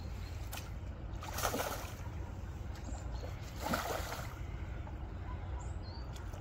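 A small carp splashes at the water's surface at the bank, twice: once about a second and a half in and again, more strongly, at about four seconds.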